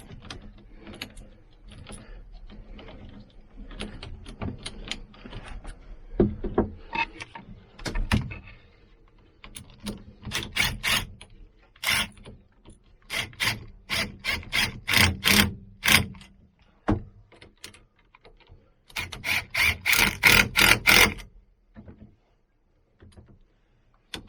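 Hand ratchet wrench clicking while nuts are run down: scattered faint clicks at first, then several loud runs of rapid clicks in the second half.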